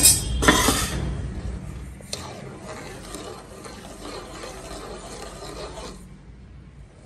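A spoon stirring undissolved sugar crystals in water in an aluminium pot. The grains scrape gritty against the pan's bottom and walls, then the sound dies away about six seconds in.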